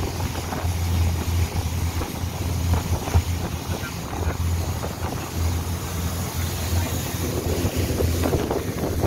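Long-tail boat's engine running steadily under way, a low drone beneath wind buffeting the microphone and water rushing and splashing past the hull.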